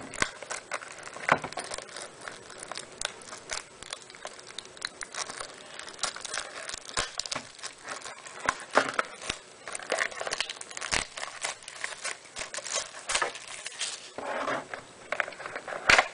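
Plastic shrink wrap being picked at and torn off a sealed box of baseball trading cards: continuous irregular crinkling and crackling with sharp snaps, the loudest near the end.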